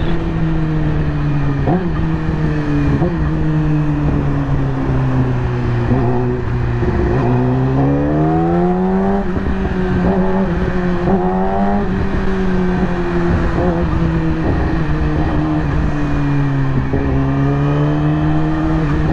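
2020 Yamaha YZF-R6's inline-four engine running under way, its pitch sliding slowly down, then climbing again about eight seconds in, with several brief quick changes of pitch along the way.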